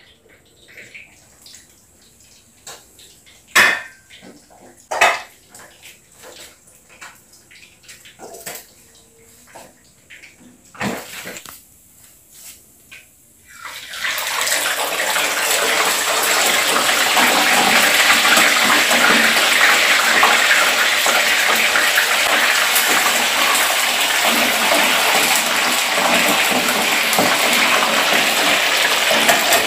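A few sharp clicks and knocks, then about halfway through whole fish go into hot cooking oil in a frying pan and a loud, steady sizzle of frying starts suddenly and keeps on.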